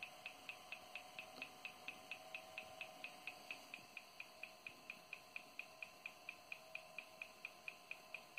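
Faint, fast, even ticking from an NCR laptop during its BIOS memory test at power-on, about four sharp ticks a second, over a faint steady hum.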